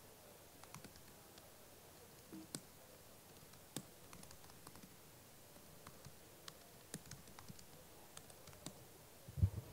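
Faint typing on a computer keyboard: scattered single key clicks as a short terminal command is entered.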